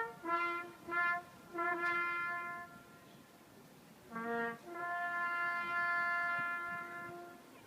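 Music on a solo brass instrument: a slow phrase of short notes, a brief pause, then two short notes and a long held note in the second half.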